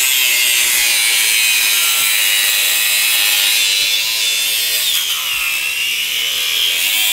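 Handheld angle grinder cutting through metal, a steady high grinding screech. The motor's pitch sags and recovers as the disc bites, about four seconds in and again near the end.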